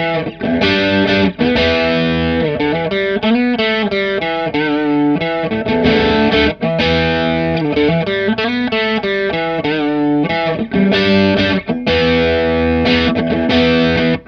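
Electric guitar playing chords and notes through a Stoy Sound Choir Boy analog bucket-brigade chorus pedal, switched on, with a Boss BD-2w Blues Driver adding overdrive. Some held notes waver in pitch.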